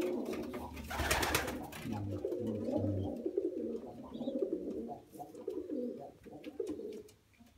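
Domestic pigeons cooing in a loft, the low wavering coos going on until about seven seconds in, with a brief rustle about a second in.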